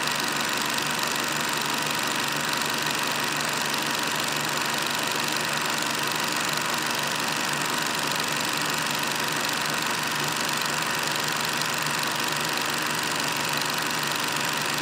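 Steady mechanical running noise with a constant hiss, unchanging in level throughout.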